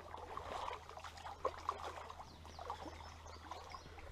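Shallow creek water splashing and trickling in small irregular bursts, typical of a hooked smallmouth bass thrashing at the surface as it is brought in.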